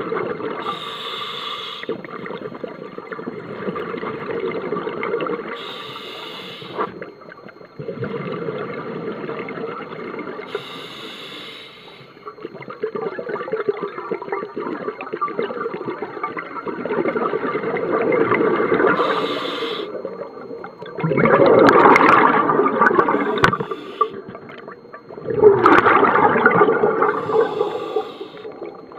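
Scuba regulator breathing underwater: a steady gurgle and bubbling of exhaled air, with a short hiss coming back every five seconds or so and two loud bursts of bubbles in the last third.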